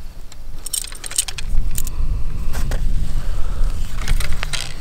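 Light metallic clicks and rattles from nocking an arrow, clipping on a release aid and drawing a compound bow, in a few short clusters. Wind rumbles low on the microphone underneath.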